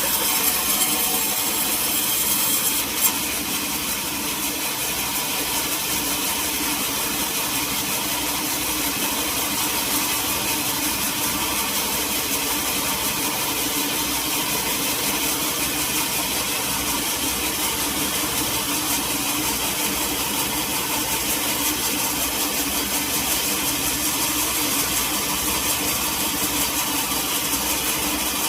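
Sawmill saw and its engine running steadily, with the saw cutting through a teak log. The high cutting hiss is stronger for the first three seconds, ends with a brief knock, and then the machine runs on evenly.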